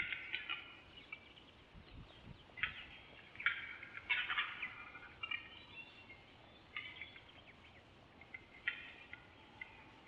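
Eurasian capercaillie calling on the lek during a face-off between males: a series of short calls, each under a second, repeated at uneven gaps of one to two seconds.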